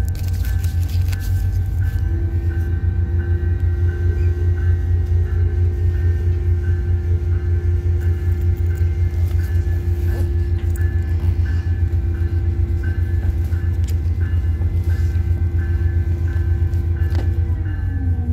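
Steady low rumble of a WES diesel commuter railcar running, heard from inside. A hum enters about two seconds in and slides down in pitch near the end. A bell rings steadily about twice a second throughout.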